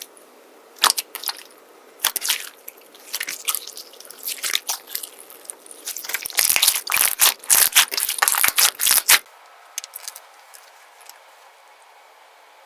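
Slime being squeezed and pressed by hand, giving irregular crunchy crackles and pops that come thickest about six to nine seconds in. After that they stop abruptly, leaving only faint scattered clicks.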